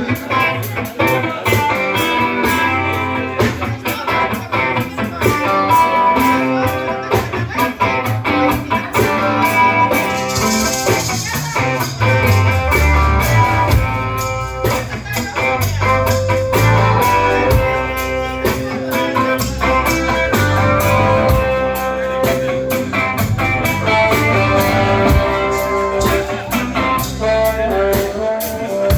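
Instrumental band music: guitar over bass and drums, a steady blues-rock groove with no singing.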